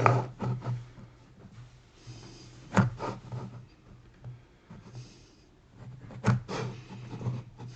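Pencil scratching layout lines onto a wooden board, with two light knocks of the square or other tools on the wood, about three and six seconds in.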